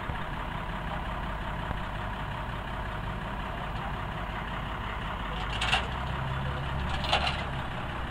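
A heavy truck's engine idling steadily, with two brief higher-pitched noises about two-thirds of the way in and again near the end.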